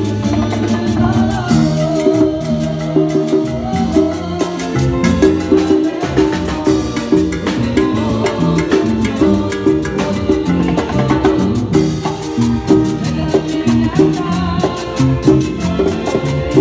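Live cumbia band playing: an electric keyboard carries the melody over drum kit and hand drums, with a metal güiro scraped in a steady fast rhythm.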